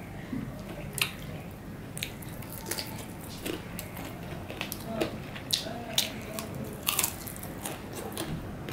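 Close-up eating sounds of a person eating chicken bhuna khichuri with the fingers: wet chewing with frequent sharp lip smacks, about one or two a second.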